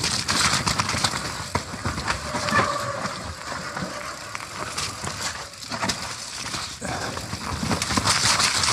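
Nukeproof Mega full-suspension mountain bike descending a rough, wet trail at speed: tyres churning over mud, roots and rocks, with a steady rush and a rapid clatter of knocks as the bike rattles over bumps.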